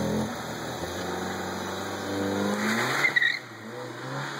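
Seat Leon ST Cupra 280's turbocharged 2.0-litre four-cylinder accelerating hard away, its engine note rising in pitch. About three seconds in the rise breaks with a short loud burst at a gear change, then the note climbs again more quietly as the car draws away.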